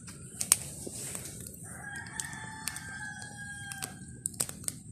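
A rooster crowing once, a single long call lasting about two and a half seconds, starting nearly two seconds in. Scattered sharp clicks are heard throughout.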